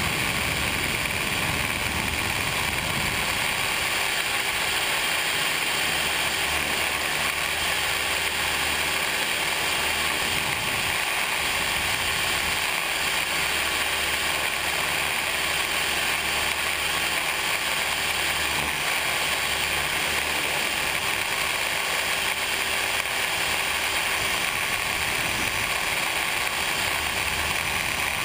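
Radio-controlled helicopter's motor, drivetrain and rotors running steadily in flight, heard from a camera mounted on the helicopter itself: a constant mechanical whine over a steady rush, with an uneven low rumble.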